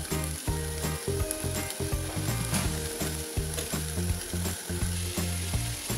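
Chunks of minced chicken sizzling as they start to fry in a hot nonstick wok without oil, with scattered light clicks. Strong low tones underneath change pitch every fraction of a second.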